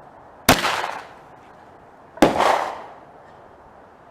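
Smith & Wesson Victory .22 LR semi-automatic pistol fired twice, about a second and a half apart, each sharp report trailing off over about half a second.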